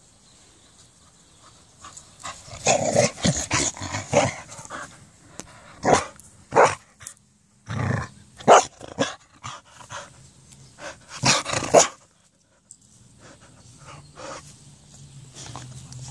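A dog barking close to the microphone in a string of short play barks from about two seconds in until about twelve seconds in, then quieter.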